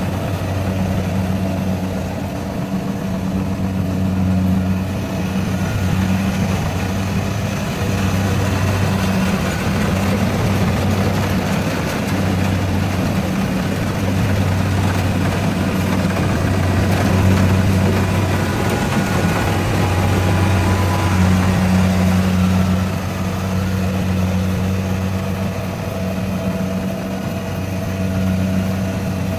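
Rice harvester running steadily, its engine holding an even pitch under a wide spread of mechanical noise.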